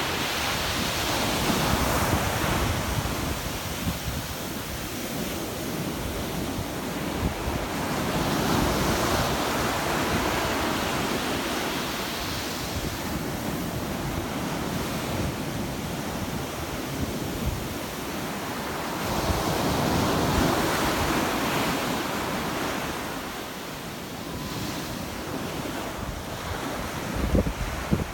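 Sea waves washing onto the beach and against rocks, the surf swelling and ebbing in slow surges every several seconds, with wind buffeting the microphone and a brief low thump near the end.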